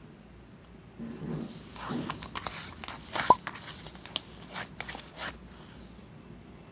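Slime being squished and handled, making a run of sharp clicks and pops, the loudest about three seconds in with a brief squeak.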